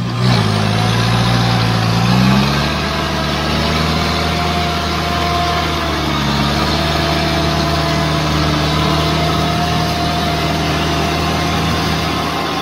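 Engine of a lifted UAZ on giant mud tyres working in deep mud. Its revs climb over the first two seconds, then hold at a steady, slightly wavering pull.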